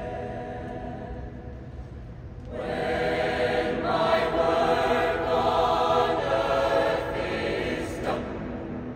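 Mixed choir of men's and women's voices singing sustained chords in a large cathedral. The choir sings softly at first, swells to a full, loud passage about two and a half seconds in, and eases back near the end.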